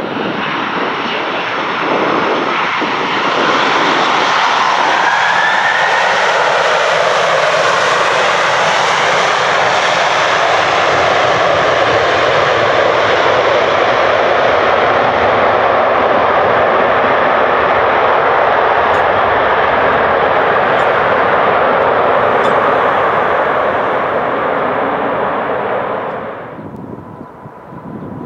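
A loud, steady engine noise that grows louder about three seconds in, holds, and cuts off abruptly near the end, leaving a faint steady tone.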